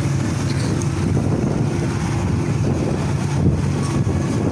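Street noise: a vehicle engine running steadily, with wind rumbling on the phone's microphone.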